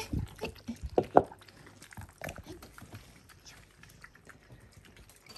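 Several cats eating wet food from bowls: soft, irregular chewing and lapping clicks, with a few louder knocks in the first second and a half.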